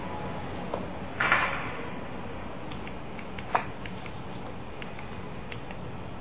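A kitten's paws scrabbling and tapping on a laptop keyboard: scattered light clicks, a louder scuffle about a second in and a sharp click a little past three seconds, over a steady hiss.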